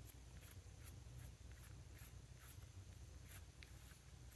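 Near silence: quiet room tone with a low hum and a few faint, scattered small ticks.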